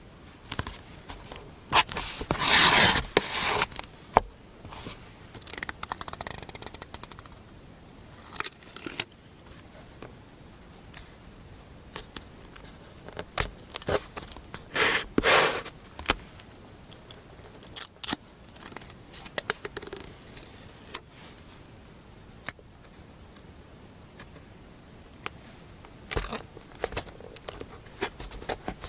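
Paper handled at a desk for collage journaling: paper sliding, scraping and crinkling in short irregular strokes, broken by sharp clicks.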